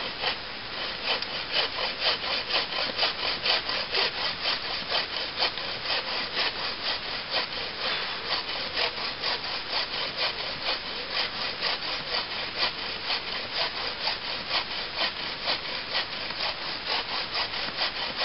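Browning takedown saw cutting through a log by hand in steady back-and-forth strokes, about two or three rasps a second. The teeth clear the sawdust from the cut on every stroke.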